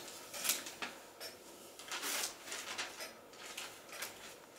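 Paper advertising brochure rustling and crinkling as a baby grabs and lifts its pages, in several short crackles.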